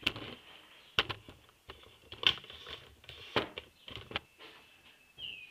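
Camera being handled and repositioned: a string of irregular knocks, bumps and rustles, five or so sharper knocks among them.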